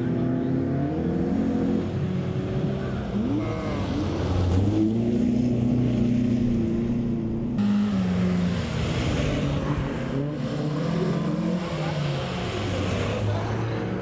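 Folkrace cars' engines revving on a dirt circuit, the pitch rising and falling with throttle and gear changes. The sound changes abruptly about seven and a half seconds in.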